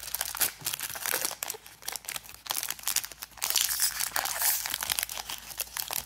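Topps Chrome trading-card pack's crimped foil wrapper being torn open by hand: a dense run of crinkling and tearing crackles that stops at the end.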